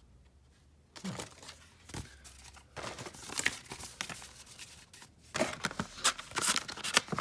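Clear plastic blister packaging and a cardboard box being handled, crinkling and rustling with irregular sharp clicks. It starts about a second in and gets louder about five seconds in.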